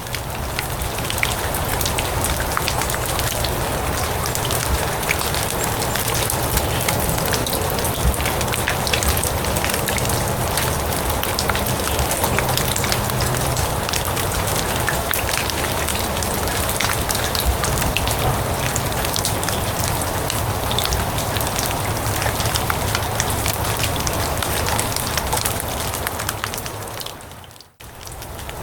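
Steady rain falling on grass, a dense hiss full of small ticks from single drops. Near the end it briefly fades almost out and comes straight back.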